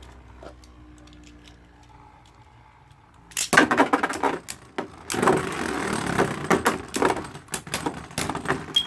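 Beyblade Burst spinning tops, one of them Prime Apocalypse, launched into a plastic stadium about a third of the way in. They then clatter and clash rapidly against each other and the stadium walls in a dense run of clicks and scraping.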